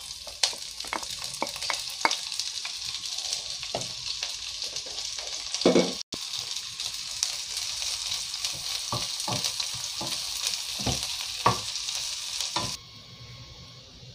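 Sliced onions sizzling as they fry in hot sesame oil, with a wooden spatula knocking and scraping in the pan as they are stirred. The sizzle cuts off suddenly near the end.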